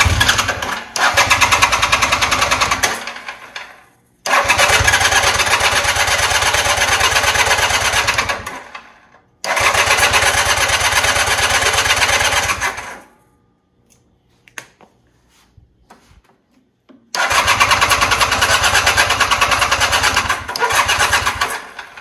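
Electric starter cranking a Honda CB450T Hawk's parallel-twin engine in four long bursts of a few seconds each, with short pauses between. The engine does not catch because it is out of fuel.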